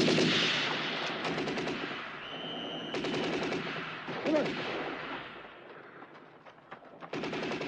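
Bursts of machine-gun fire: one dying away just after the start, another about three seconds in, a third near the end. A brief high whistling tone comes just before the second burst, and a man shouts about four seconds in.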